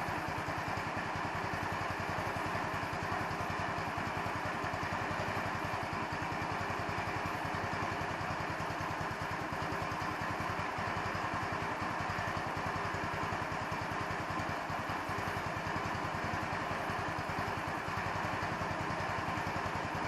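150cc Chinese scooter engine idling steadily with an even, rapid firing beat and no revving. The owner suspects the idle mixture is not set properly.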